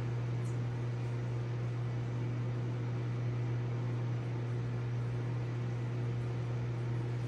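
Aquarium pump motor humming steadily, a low electrical hum over an even hiss of running water and equipment.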